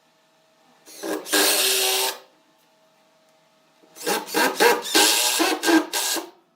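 A hand tool or power tool working wood: a noisy burst lasting about a second, a pause, then a couple of seconds of quick, irregular rubbing strokes.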